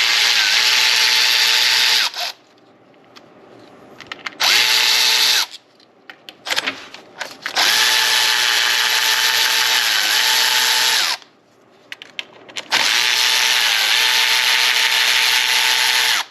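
Power drill spinning out 8mm bolts in four runs. The first lasts about two seconds, a short one comes a few seconds later, then two longer runs of about three seconds each, with a steady motor whine that dips slightly under load. Quieter gaps with small clicks fall between the runs.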